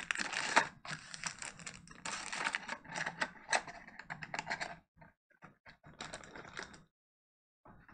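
Cardboard box insert and its small contents being handled, a dense run of quick clicks and rattles that thins out after about five seconds and stops near the end.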